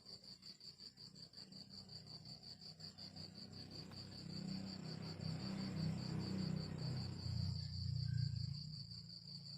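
Cricket chirping steadily, a high pulsed trill of about eight pulses a second. About three seconds in, a louder low rumbling noise swells up over it and fades out near the end.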